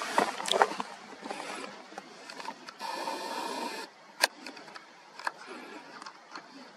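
A camera's zoom motor whirring for about a second, amid small handling clicks, with one sharp click a little over four seconds in.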